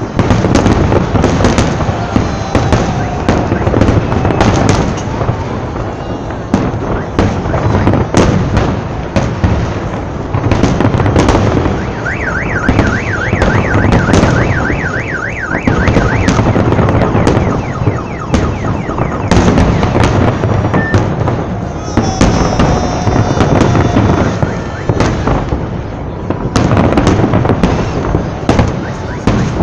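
Fireworks salute, with many booming bursts in quick succession and crackling among them. A car alarm warbles up and down for a few seconds about twelve seconds in.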